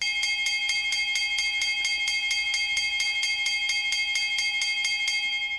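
Electric school bell ringing: a clapper strikes the gong rapidly and evenly, about five strikes a second, over a steady metallic ring, starting abruptly.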